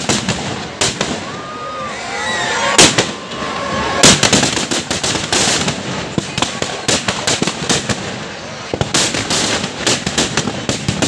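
Firecrackers packed inside a burning Dussehra (Ravana) effigy going off in rapid, irregular volleys of bangs and crackles. Two single bangs about three and four seconds in are the loudest, and there are dense bursts right after them and again near the end.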